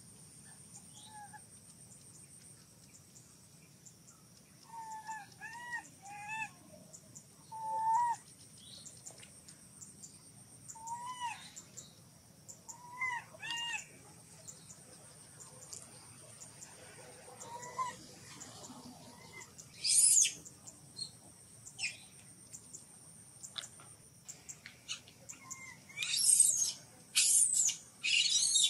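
Baby macaque crying: short, arching coo-like calls in bunches of two or three, then several louder shrill screams near the end. A steady high insect whine runs underneath.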